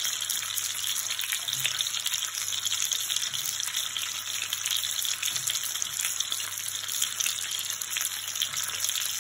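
Rendered duck fat sizzling steadily in a frying pan around a seared duck breast, with light crackling as dried apricots are laid into the hot fat to candy.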